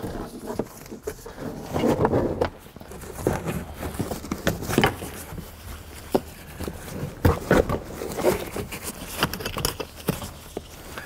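Irregular knocks, clicks and rustling scrapes as a car's leather rear seat back is handled and pushed into place against the body and trim.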